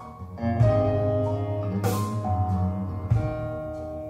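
Instrumental passage of a recorded song played through PMC twenty5.23 floor-standing hi-fi speakers: sustained guitar and keyboard notes, with two sharp percussion hits about a second apart near the middle.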